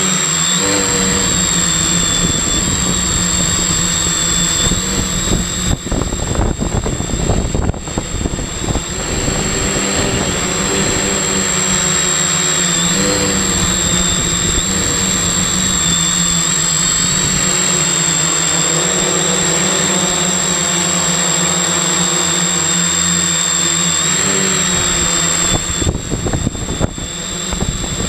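Multirotor drone's electric motors and propellers buzzing steadily in flight, heard from on board the craft, the pitch shifting briefly a few times with throttle changes. Gusts of wind rumble across the microphone in patches.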